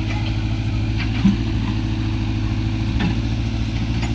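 Sumitomo excavator's diesel engine running steadily, with two short knocks, about a second and three seconds in.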